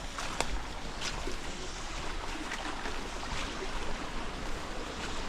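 Beach ambience: a steady rush of surf and wind on the microphone, with a few faint ticks.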